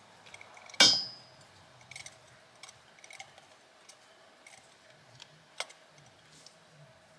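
Small metal clicks and taps from a compression tester's hose fitting being screwed into a spark-plug hole, with one sharp, ringing metallic clink about a second in and another click after about five and a half seconds.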